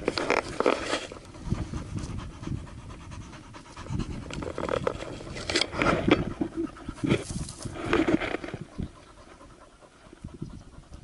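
A hunting dog panting hard close by, in several bouts that fade near the end.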